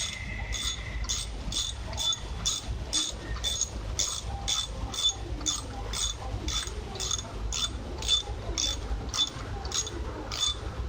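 Steady mechanical clicking, about two sharp clicks a second, over a low rumble.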